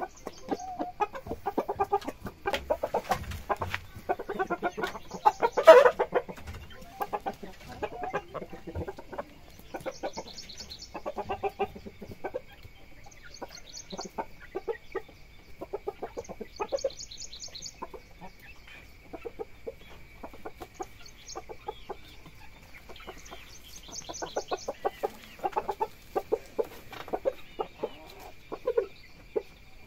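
Shamo chickens clucking in quick runs of short notes, loudest about six seconds in.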